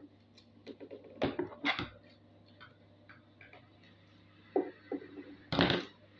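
Paper and scissors being handled on a tabletop: three clusters of short rustles and knocks.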